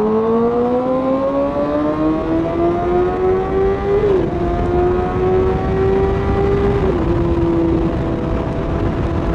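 Inline-four sport-bike engine pulling up through the revs, dropping in pitch at a gear change about four seconds in and again around seven seconds, then holding a steady cruise. Wind rushes over the microphone underneath.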